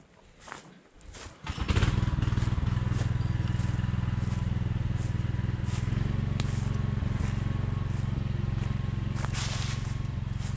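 Billy Goat Outback walk-behind brush cutter's engine running at a steady low hum, coming in about two seconds in. Footsteps crunch on dry leaf litter and twigs over it.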